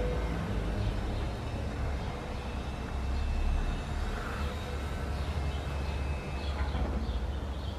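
Outdoor city background: a steady low rumble, with a few faint high chirps near the end.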